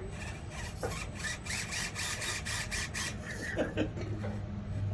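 Axial SCX24 mini RC crawler's small electric motor and gears whining, with a rapid ticking, strongest from about one to three seconds in.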